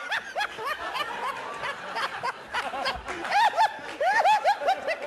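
Several voices laughing and snickering in quick, overlapping bursts, each laugh rising and falling in pitch.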